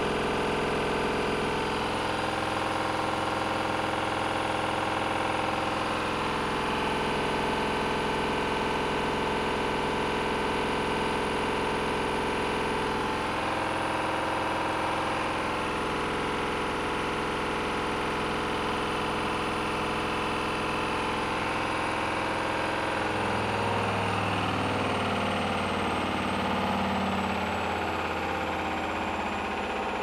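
Hoover washing machine on its final spin with a badly unbalanced load: the motor and drum run loud and steady, with a steady high whine. About 23 seconds in the whine starts falling in pitch and the low drum sound grows rougher and less even.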